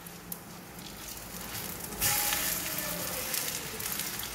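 Vegetable fritters shallow-frying in hot oil, a soft sizzle that suddenly gets much louder about two seconds in as a fritter is turned over into the oil.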